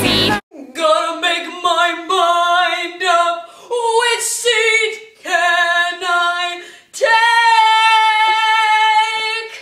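A girl singing unaccompanied: a run of short sung phrases, then one long held note near the end. Backing pop music cuts off just under half a second in.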